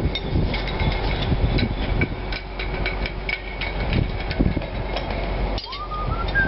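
Irregular metallic knocks and clinks of hand tools working on a steel base plate, several a second, with a brief rising whine near the end.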